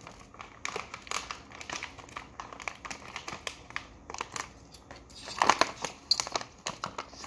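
A pouch of carbomer powder crinkling as it is handled and opened, in a string of small crackles, loudest about five and a half seconds in.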